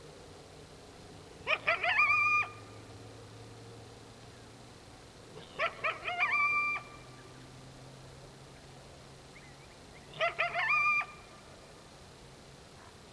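Coyote calling three times, about four seconds apart: each call is a few quick yips running into a short, held, high note.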